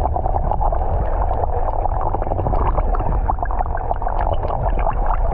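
Muffled seawater noise picked up by a camera held underwater: a steady deep rumble with gurgling and a constant fine crackle.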